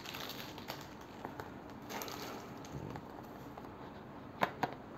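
Faint rustling and scraping of a cardboard perfume box being handled and opened, with small scattered clicks and a couple of sharper taps a little past four seconds in.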